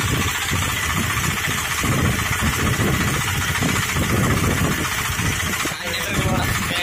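Power tiller's Agrimart 9 HP single-cylinder diesel engine idling steadily, with the tiller standing still.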